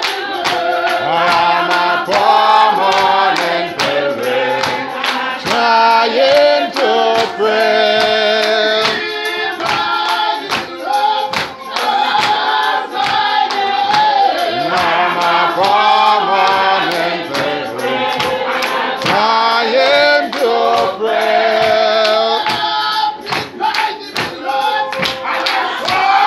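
A choir and congregation singing a gospel hymn together, over a steady beat of sharp percussive strikes.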